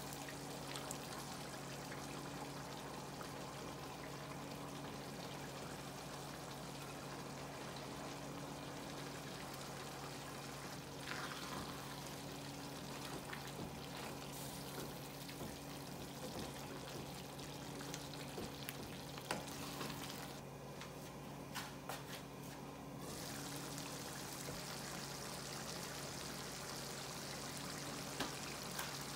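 Pot of sweet potato leaf stew in palm oil and peanut sauce simmering with a faint steady bubbling hiss, over a steady low hum. A few light clicks from a wooden spoon stirring come through the middle.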